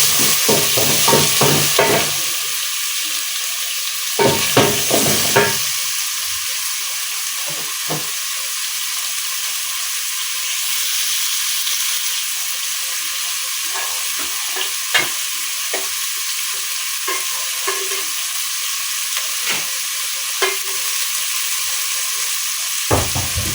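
Duck stew sizzling in plenty of hot oil in a pot, a steady frying hiss. A spoon stirs and knocks against the pot in quick runs over the first two seconds and again around four to five seconds in, then gives occasional single knocks.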